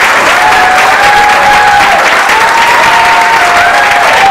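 Audience applauding steadily, with a few voices calling out in long notes over the clapping.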